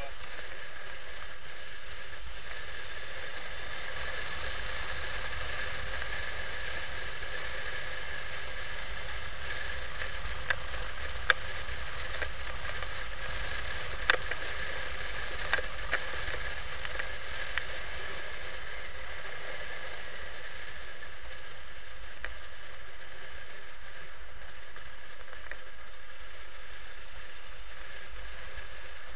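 Steady hiss of wind and road noise from a moving motorcycle, heard through a camera mounted on the bike, with a faint steady high whine. A cluster of sharp clicks comes through the middle.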